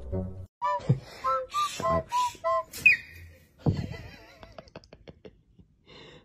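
A quick run of short whistle-like notes, about six in two seconds, ending in one rising note; then a brief burst of noise followed by a few light clicks.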